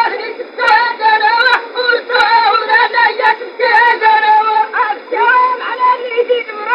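A man chanting a poem in a long, melodic sung line of held, wavering syllables with brief pauses for breath. The voice sounds thin and telephone-like, missing its deep and high end.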